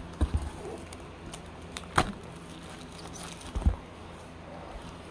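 Hands handling a small cardboard earphone box and sliding off its outer sleeve, with a few short knocks and taps: two near the start, a sharp one about two seconds in, and a pair near three and a half seconds.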